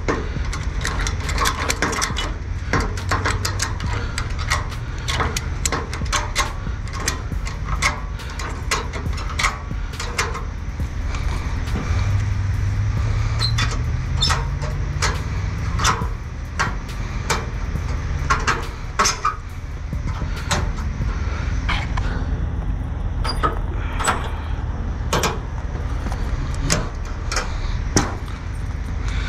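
Truck engine running steadily, its pitch rising for a few seconds about twelve seconds in, with frequent clanks and taps from boots on the car hauler's perforated steel deck and ramps.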